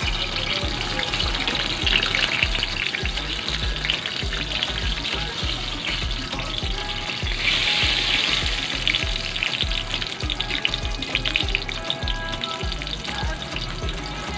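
Eggplant slices sizzling and crackling as they fry in oil in a steel wok, turned over with a slotted metal spatula. The sizzle is strongest for a second or two about halfway through.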